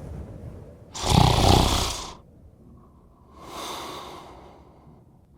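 A man snoring: a loud snore about a second in, then a quieter breath out about three and a half seconds in, in a slow repeating rhythm.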